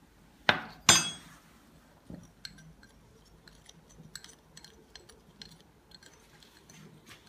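A spoon clinking twice against a ceramic bowl near the start, the second clink louder and ringing, then a plastic measuring spoon stirring dye in the bowl with light scattered ticks against its sides.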